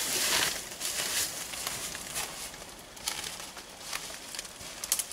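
Footsteps crunching and rustling through dry fallen leaves on a forest floor, fading as the walker moves away.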